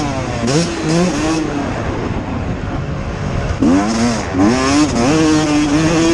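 Motocross bike engine revving, its pitch climbing and dropping again and again as the throttle is opened and rolled off through the gears.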